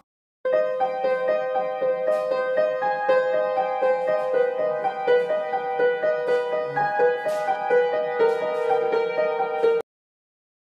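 Piano being played by hand: a run of single notes and short chords at an even pace, which cuts off suddenly about a second before the end.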